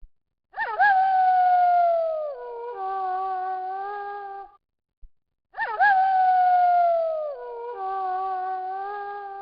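Wolf howling: each howl swoops sharply up, slides down in a long falling note, then holds a steady tone. The same howl comes twice, about five seconds apart.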